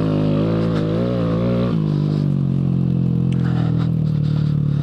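Honda Grom's 125 cc single-cylinder engine running under way. Its pitch wavers with the throttle for the first couple of seconds, then drops and holds steady at a lower note, with a few faint ticks later on.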